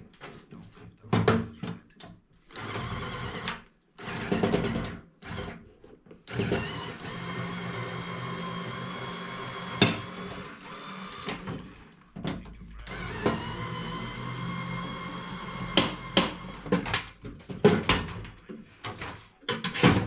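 A handheld power screwdriver's motor whirs in several long runs while backing screws out of a microwave's metal chassis. Between the runs, metal parts knock and clank, more often near the end.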